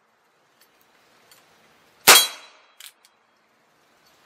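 A single shot from a Heritage Rough Rider .22 rimfire single-action revolver about two seconds in, loaded with subsonic .22 rounds, with a short decaying tail. A fraction of a second later comes a brief clang of the bullet striking a steel target.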